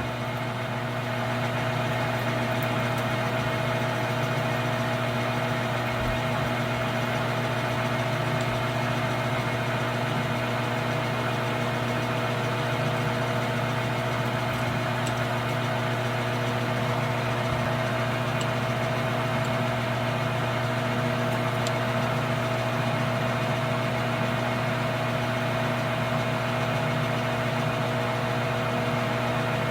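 Metal lathe running steadily with an even, unchanging hum while a number 25 drill bores the tap-drill hole for a 10-24 thread in the end of the clamp screw.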